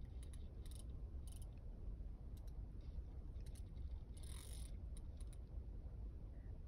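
Fishing reel clicking in short, irregular bursts, with a longer rasp about four seconds in, while a heavy fish keeps the rod bent; a steady low rumble runs underneath.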